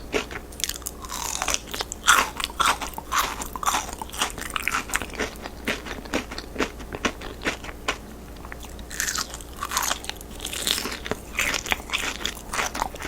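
Crispy fried chicken being bitten and chewed: crackling crunches of the fried coating mixed with chewing, with clusters of louder bites near the start and again later on.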